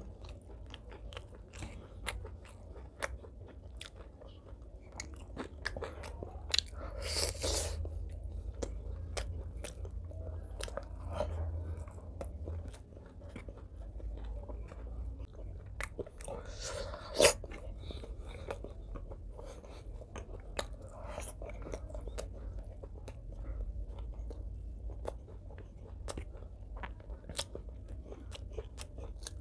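Close-miked chewing and biting of a meal eaten by hand, with many small wet mouth clicks throughout. There are two louder spells of crunching, about 7 and 17 seconds in, and the second ends in a sharp click. A low hum runs underneath.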